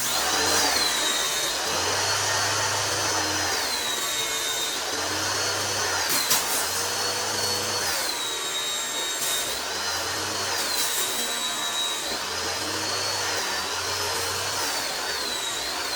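Electric pressure washer running with its motor and pump under load while it sprays water, a steady dense rushing sound with a wavering high whine. A low hum swells and fades every couple of seconds.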